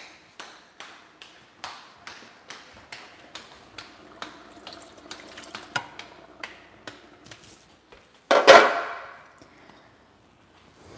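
Hands patting tortilla dough between the palms, a steady run of soft slaps at about three a second. About eight seconds in a single loud clatter, lasting about a second, drowns them out, after which the slapping stops.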